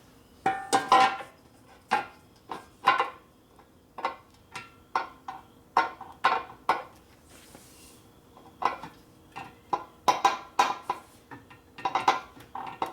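Hammer blows on a steel motorcycle gas tank, beating dimples into it for clearance. Each strike rings with a hollow metallic tone, coming in irregular groups of quick blows with a short pause a little past the middle.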